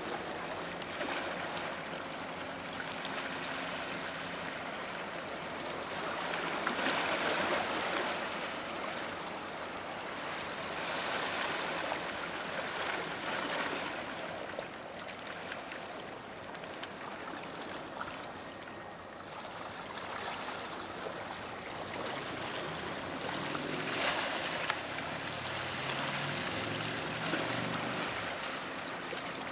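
Harbour water washing and splashing against breakwater rocks, swelling and easing every few seconds, with a faint low hum late on.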